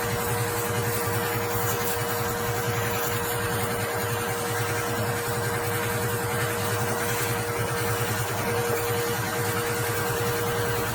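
Pressure washer running steadily, its motor and pump giving a constant low pulsing drone with a steady hum above it.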